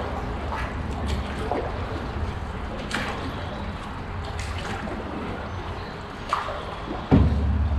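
Scattered water drips and small splashes inside a concrete tunnel, over a steady low rumble that gets suddenly louder near the end.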